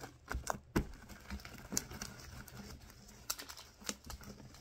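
Very sticky homemade slime, mostly shaving cream and glue, being squeezed and pulled quickly by hand, giving irregular sharp clicks and small pops.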